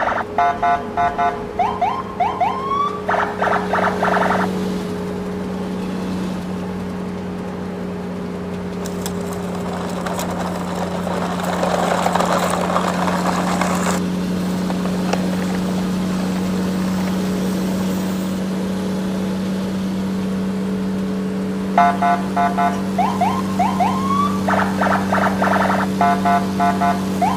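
Electronic siren and alarm-like sound effects: rapid beeping with short rising sweeps for the first few seconds and again near the end, over a steady electronic hum.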